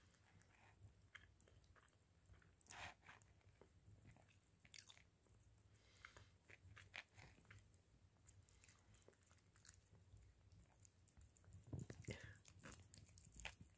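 A tabby cat chewing and nibbling at a slice of pizza: faint, irregular small clicks and crunches, with a louder patch of chewing near the end.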